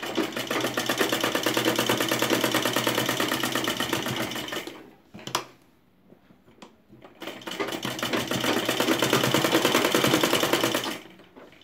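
Domestic sewing machine stitching through folded cloth at a fast, even rate, in two runs of about five and four seconds. A short pause between the runs holds a single click.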